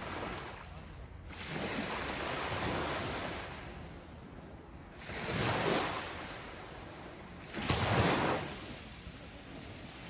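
Small sea waves breaking and washing up a pebble beach, coming in swells every few seconds; the loudest wash comes about eight seconds in.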